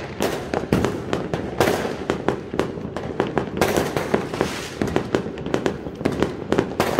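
Many fireworks going off at once: a dense, irregular run of sharp bangs, several a second, over a constant background of more distant bursts.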